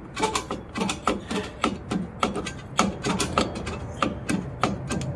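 Rear drum brake adjuster on a 2007 Toyota Corolla clicking tooth by tooth as screwdrivers turn it, about three to four irregular metallic clicks a second. The adjuster is being backed off to take pressure off the brake shoes so they can be removed.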